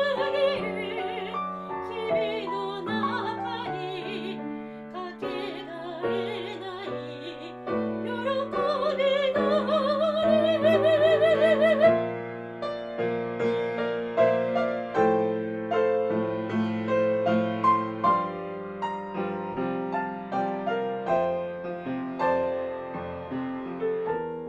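Classical soprano singing a slow Japanese art song with vibrato over grand piano accompaniment; about halfway through the voice stops and the piano carries on alone in a gentle interlude.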